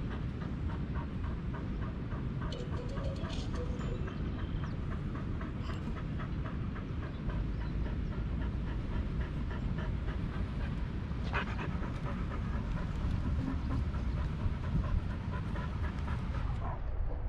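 Pit bull panting steadily, about three breaths a second, over a continuous low rumble.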